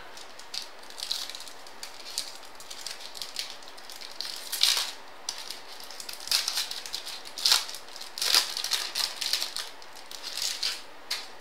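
Baseball trading cards being handled and flipped through one after another: an irregular series of short, crisp rustles and snaps of card stock.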